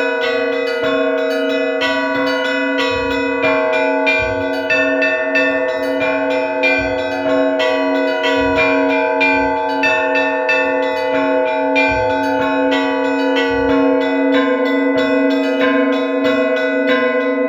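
Orthodox church bells of several sizes rung together: quick overlapping strokes several times a second over sustained ringing tones, with a deeper stroke landing every few seconds.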